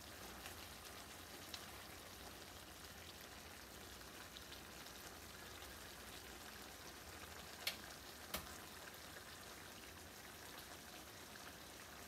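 Turnip and potato curry cooking in a pan on the stove, giving a faint, steady sizzle. Two sharp clicks come a little past the middle, under a second apart.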